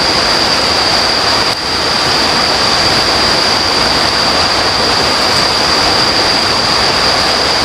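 A river rushing steadily, a loud even roar of water, with a thin steady high-pitched whine running above it.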